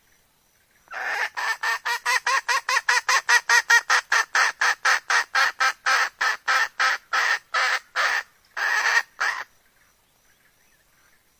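Red junglefowl hen cackling: a fast, even run of about thirty harsh clucks, some four a second, starting about a second in and ending with a longer drawn-out note. It is the call of a hen in breeding condition, ready to mate, which draws in junglefowl cocks.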